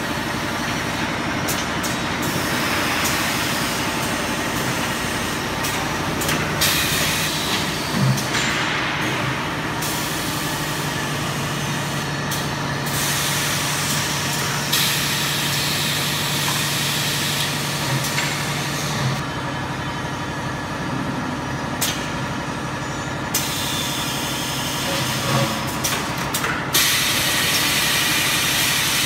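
Automatic paint-pail filling and palletizing line running: steady machine noise with several long bursts of compressed-air hiss that start and stop abruptly, a low hum through the middle, and a few knocks.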